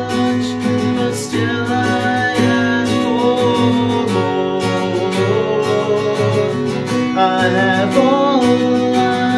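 Acoustic guitar strummed in a steady rhythm, with a man's voice singing over it in stretches.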